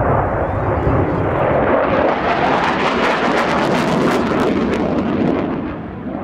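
A General Dynamics F-111's twin Pratt & Whitney TF30 afterburning turbofans as the jet flies a fast, hard turn: loud jet noise with a crackle through the middle, fading near the end.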